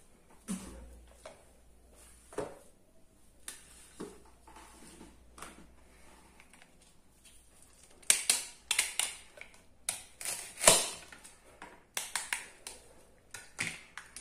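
Plastic toy kitchen pieces clicking and tapping as they are handled, then a plastic toy knife cutting a toy tomato apart in a quick run of crackly clicks and snaps, the loudest snap about three-quarters of the way through.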